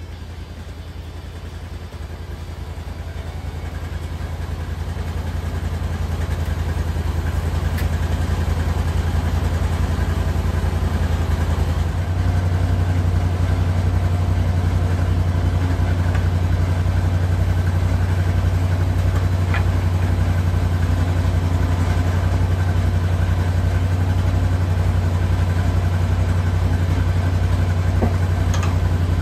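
Honda gasoline engine of a portable bandsaw sawmill idling steadily with a fast, even pulse. It grows louder over the first few seconds and turns deeper and heavier from about twelve seconds in, with a couple of faint clicks later on.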